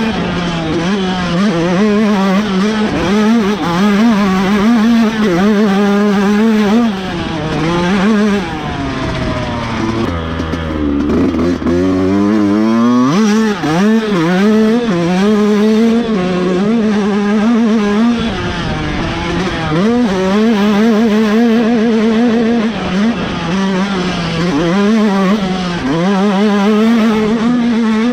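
Yamaha YZ125X two-stroke single-cylinder engine running hard, its revs rising and falling with the throttle as the bike is ridden. About ten seconds in the revs drop low for a few seconds, then climb sharply again.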